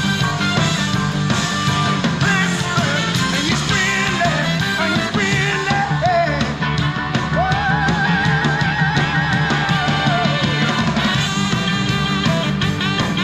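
Rock song with drums, guitar and singing played through an Acoustic Audio AA40CW center channel speaker, only one of its two 4-inch woofers working, heard through a GoPro microphone that muffles it a little. In the middle the singer holds one long wavering note.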